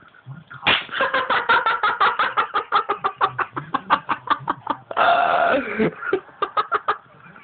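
Young men laughing hard and uncontrollably in rapid 'ha-ha' pulses, about five a second, beginning under a second in, with a louder sustained outburst about five seconds in.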